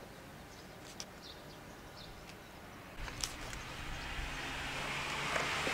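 Faint outdoor background, then a road vehicle approaching, its tyre and engine noise growing steadily louder from about halfway through.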